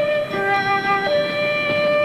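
Dramatic background music from a TV score: several sustained notes held together as a chord, which changes about a third of a second in and again about a second in.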